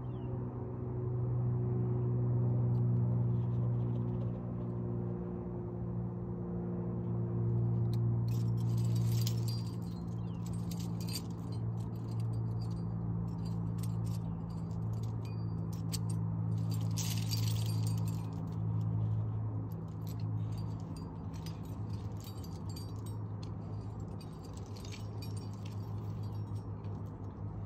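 Metal climbing hardware (carabiners and gear on a harness) clinking and jingling in scattered bursts, busiest about a third and two thirds of the way through. Under it runs a steady low hum with several pitches that swells and fades.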